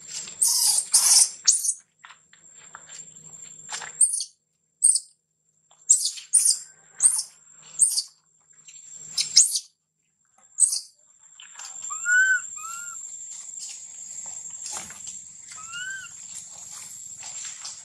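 Baby long-tailed macaque crying in short, high-pitched squeals, about a dozen of them over the first ten seconds. In the second half come a few short rising-and-falling calls.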